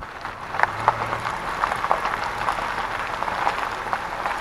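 Vehicle tyres rolling over a gravel road, a steady crunching with many small irregular pops and crackles of stones.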